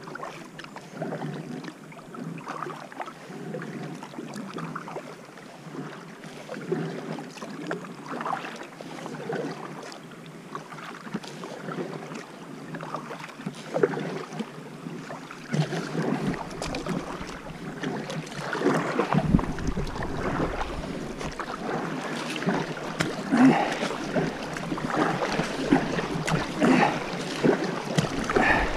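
Kayak paddle blades splashing and dipping in short, uneven strokes, with water rushing against an inflatable kayak as it is paddled upstream into a shallow rapid. The water noise and a low rumble grow louder about two-thirds of the way through as the current quickens.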